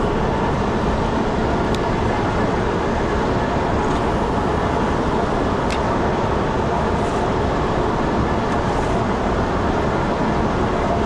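Boat underway: a steady motor drone mixed with wind and rushing water.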